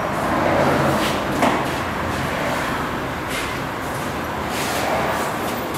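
Large off-road tires rolling and scrubbing on a concrete floor as an engine-off rock crawler is pushed and steered by hand: a rough rumbling noise that swells and fades, with a couple of short knocks.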